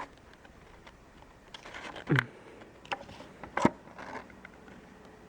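A few scattered light clicks and taps in a quiet room, the loudest about three and a half seconds in, with a short falling sound just after two seconds.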